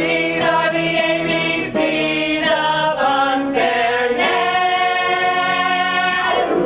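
A mixed ensemble of men and women singing together in harmony: a run of short sung notes, then one long held chord that cuts off near the end, the close of a musical-theatre number.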